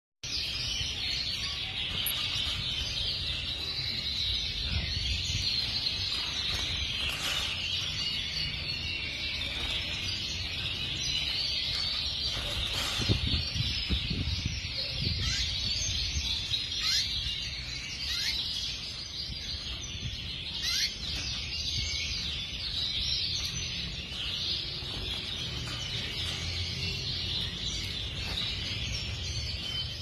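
White domestic canaries singing: a continuous, rapid warbling song of high rolls and trills, broken by occasional short downward-sweeping notes. A low rumble runs underneath.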